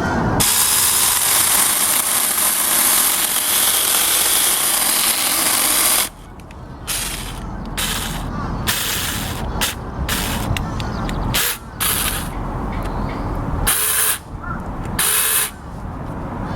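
Mini chainsaw running steadily for about six seconds, then run in a string of short bursts with brief pauses between them.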